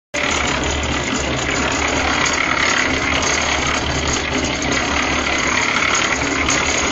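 A motor-driven machine running steadily, a continuous mechanical noise over a low hum.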